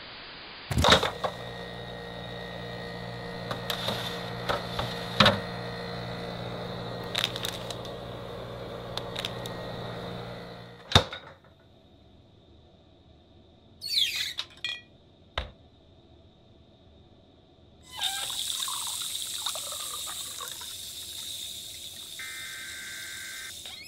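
A steady low hum with scattered clicks, cut off by a sharp click about eleven seconds in; after a quiet stretch with a few brief sounds, a kitchen tap runs into the sink for the last several seconds.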